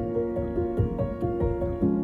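Background music: calm, sustained keyboard-like notes over a steady beat.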